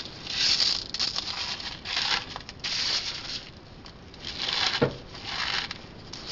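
Crushed potato-chip crumbs crunching and rustling as a chicken breast is pressed and packed into the coating, in several short bursts, with a sharp click near the end.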